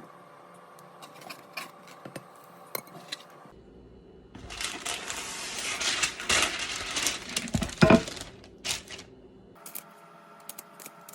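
Kitchen handling sounds: a few light clicks and clinks, then about five seconds of rustling, scraping noise with a sharper knock near the end, then more light clicks.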